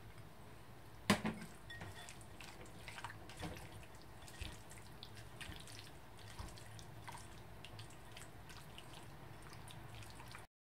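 Silicone spatula stirring yogurt into raw chicken pieces in a glass bowl: soft wet squelches and light ticks and scrapes against the glass, with one sharp knock about a second in. The sound cuts off suddenly near the end.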